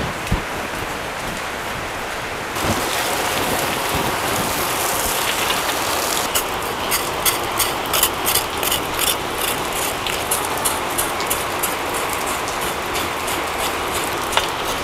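Water from a hose splashing steadily into a metal wok. From about six seconds in, a charred cow foot is scraped clean in the water with quick, even strokes, about three a second.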